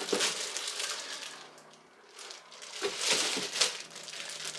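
Thin plastic bag crinkling and rustling as it is handled, in two spells: one at the start and a louder one about three seconds in.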